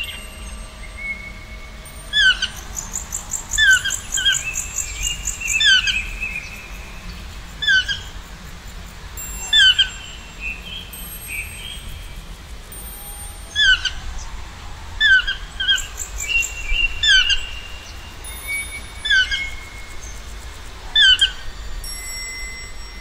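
Birds singing and calling: short, sharp, falling chirps come in clusters every second or two, with a high buzzy trill and thin whistled notes between them.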